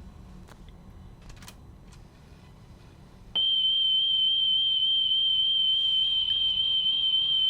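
A few faint clicks, then about three seconds in a steady high test tone starts abruptly and holds: the 3150 Hz reference tone of a wow-and-flutter test cassette played by a Sony WM-FX491 Walkman through an external speaker. Its pitch wavers slightly; the tape runs off speed with high flutter.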